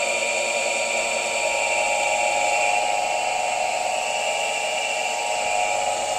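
Induction electric motor, run in resonance with a capacitor on 220 V, driving a car alternator: a steady electric whine and hum with several held high tones. The alternator is being switched into self-excitation and takes load from the motor.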